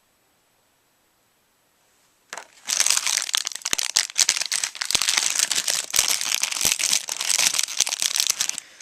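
Packaging being unwrapped and handled, a dense crinkling with many small crackles that starts about two seconds in and stops just before the end.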